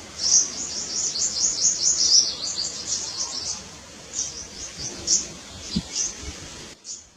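A group of small birds chirping: many quick high chirps overlapping densely for the first three and a half seconds, then thinning to scattered chirps.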